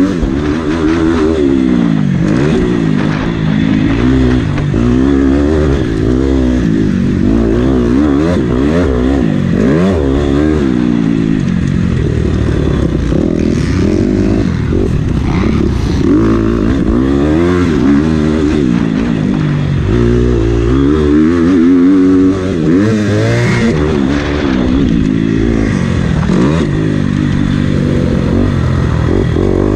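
Motocross bike engine, heard close from the bike itself, revving up and dropping back again and again as the rider works the throttle through the track's straights and turns.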